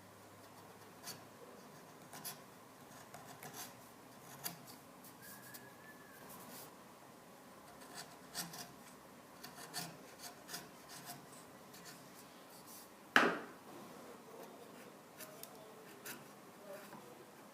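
Quiet, irregular rubbing and scraping strokes of a hand tool on wood, with one sharp knock about thirteen seconds in.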